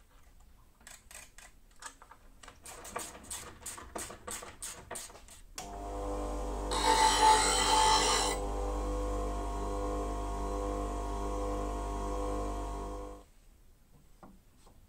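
Bench grinder motor running with a steady hum. For about a second and a half a steel chisel is ground against the wheel, a loud harsh hiss over the hum. Before the motor starts there is a quickening run of clicks and knocks, and the hum cuts off suddenly near the end.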